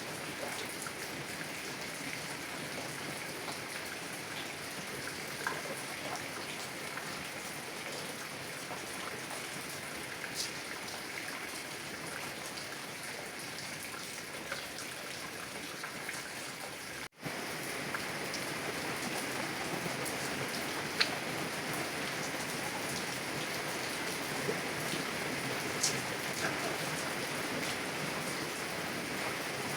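Heavy rain falling on a car window: a steady hiss with scattered individual drops ticking. The sound cuts out for an instant about seventeen seconds in and comes back slightly louder.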